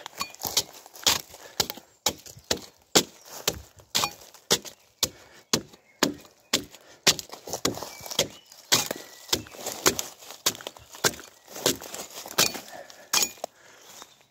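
Bark being stripped off a log with a hand tool: repeated chopping and scraping strokes about twice a second, with bark cracking and splitting away.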